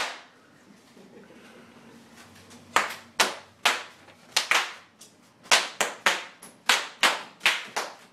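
Bubble wrap being stomped on by children, popping. One pop at the start, then a quiet stretch, then from about three seconds in a quick string of separate pops, about two a second.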